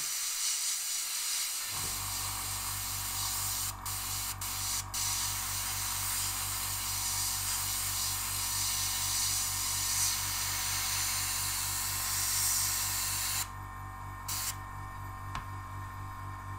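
Gravity-feed airbrush spraying with a steady hiss of air, broken by a few short trigger releases about four seconds in and stopping about 13 seconds in. A low steady motor hum sets in about two seconds in.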